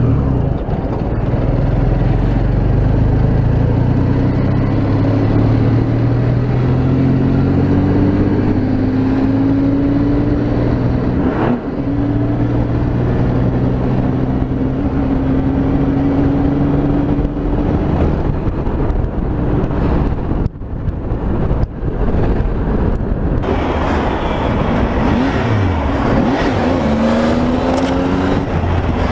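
Motorcycle engine running at highway speed, heard from the bike's own onboard camera with wind rushing past. The engine note climbs slowly in long pulls and drops back between them, with a couple of brief throttle-off dips about twenty seconds in.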